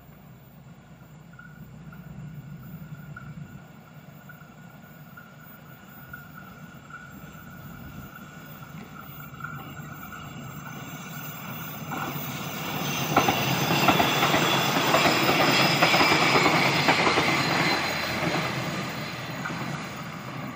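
Multiple-unit passenger train approaching and passing on a curve. Its running noise builds, and it is loudest about two-thirds of the way through, with rapid clacking of wheels over the rail joints and a high squeal from the wheels on the curve. It then eases off.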